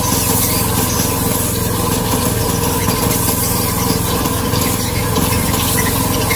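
Water jet from a pressure hose hissing against a rubber tractor tyre, over the steady hum of a running motor.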